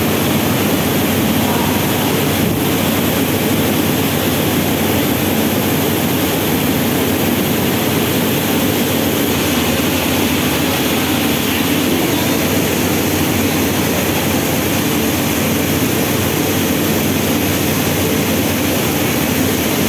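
Rice mill machinery running with a steady, loud mechanical din and a low hum.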